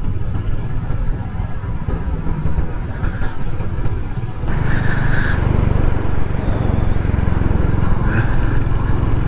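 Royal Enfield motorcycle engine running on the move with wind and road noise. The engine note steadies and picks up a little about four and a half seconds in.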